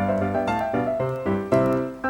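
Background piano music: a light tune of separate struck notes, each fading quickly.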